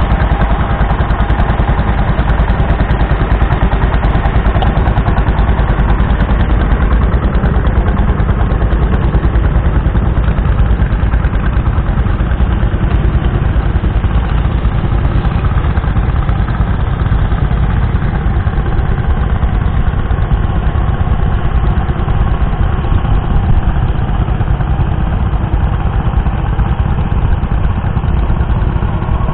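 Martin Markham Colt tractor's small 1.0-litre petrol engine running steadily under load as it pulls a mounted plough through the ground.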